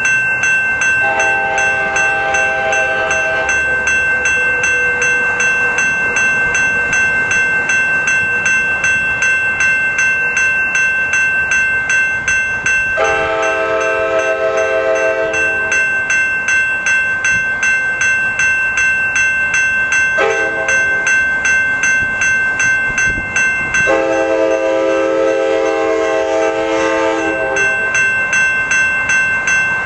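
A Pacific Surfliner cab car's K5LA five-chime air horn sounding a crossing signal as the train approaches: long, long, short, long, and starting again at the very end. A rapid steady ringing bell runs under it throughout.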